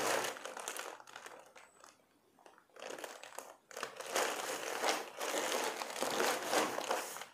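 Crinkling and rustling of a brown paper courier bag being handled and turned over. It comes in bursts with a quieter lull about two seconds in, then crinkles steadily from about four seconds until it stops near the end.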